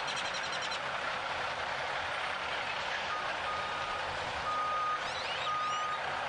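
A vehicle's reversing alarm beeps about once a second, starting about three seconds in, over a steady outdoor hiss.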